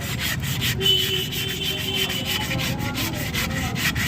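Sandpaper rubbed hard back and forth over a Mahindra Scorpio's steel brake disc in quick strokes, about five a second, scouring off the rust stain left by the car standing unused.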